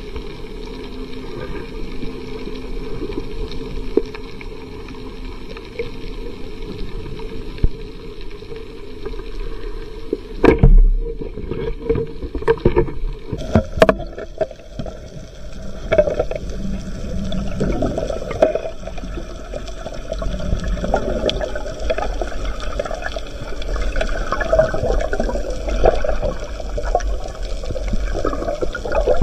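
Underwater ambience with a steady hum, then a sharp speargun shot at a grouper about ten seconds in. Scattered knocks and clicks follow as the spear and speared fish move.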